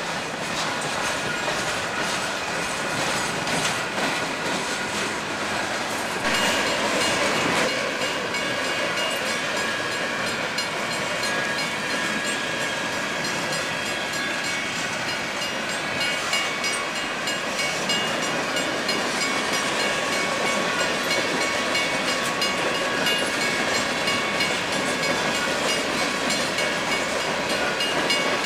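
Freight cars of a long manifest train rolling steadily past, steel wheels clicking over the rail joints in a continuous rumbling run. The sound steps up in loudness about six seconds in.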